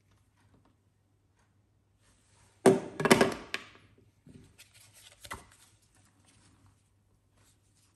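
Handling noise from Wahl Magic Clip cordless hair clippers: their plastic housings knock and clatter against a table as they are picked up and set down, loudest about three seconds in, with two lighter knocks after.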